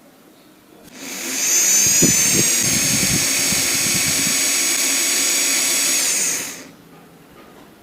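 Electric hand drill, converted to run on 12 V, spinning up about a second in with a rising whine, running steadily for about five seconds, then switching off and winding down. A few low knocks sound early in the run.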